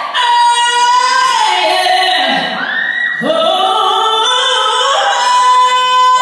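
A female voice singing, holding long steady notes with swooping slides in pitch between them.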